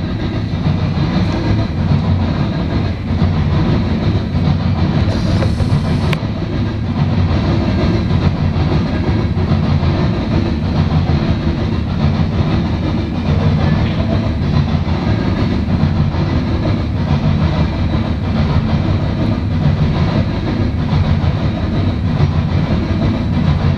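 Freight train of open-top coal hopper cars rolling past, a steady loud rumble with wheels clicking over the rail joints.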